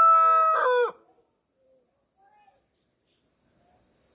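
Rooster crowing: the long held final note of its crow, which drops in pitch and cuts off about a second in.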